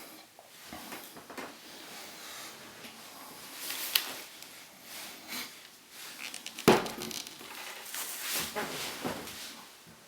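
Handling noise from small hand tools and wire: scattered light clicks and rustles, with a sharp click about four seconds in and a louder knock about two thirds of the way through.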